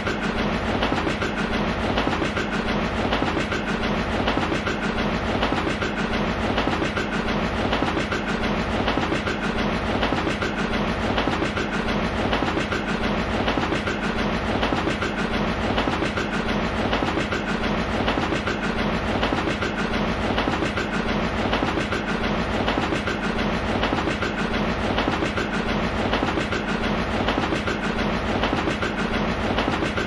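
Small steam engine puffing sound effect: a steady, even rhythm of chuffs.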